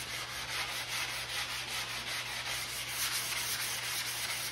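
Hand-sanding a varnished wooden covering board with folded 220-grit sandpaper: steady back-and-forth rasping strokes of the paper over the varnish. This is the light sanding between varnish coats, after the drips have been shaved off, that readies the board for the next coat.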